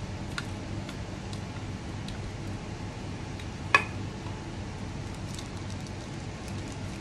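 Light clicks and taps of a small clear plastic drill container and paper being handled on a tabletop, with one sharper plastic clack about four seconds in. A steady low hum runs underneath.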